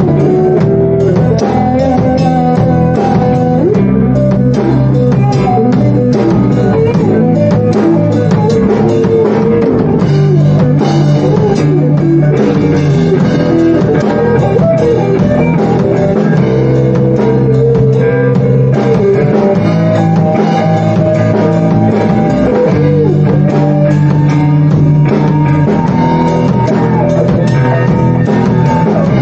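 Rock music with guitar and a drum kit, playing steadily and loud.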